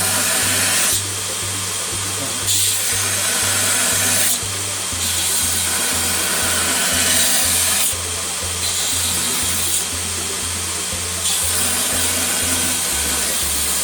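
Ameribrade 2x72 belt grinder at 30% power grinding metal on a 120-grit belt in repeated passes. The grinding hiss comes and goes every one to three seconds as the work is pressed to the belt and lifted off. Background music with a steady bass beat runs underneath.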